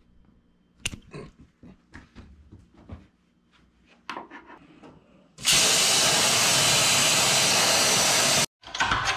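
A few scattered clicks and knocks, then a CNC plasma table's cutting torch cutting sheet metal: a loud, steady hiss starts about five seconds in, lasts about three seconds and cuts off suddenly.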